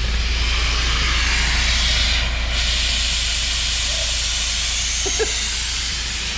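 Steady rushing-air hiss over a low hum. The hiss drops out in the highest range for a moment about two seconds in.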